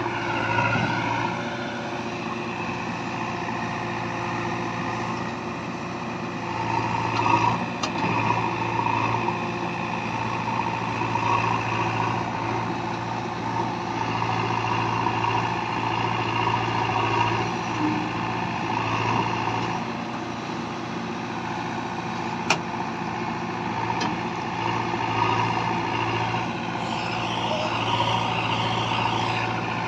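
JCB 3DX backhoe loader's diesel engine running steadily as the machine works, its note swelling a few times, with three sharp clicks or knocks.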